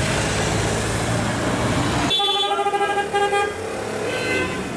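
Street traffic noise, then about two seconds in a vehicle horn honks, a steady pitched blast lasting about a second and a half, with a fainter honk near the end.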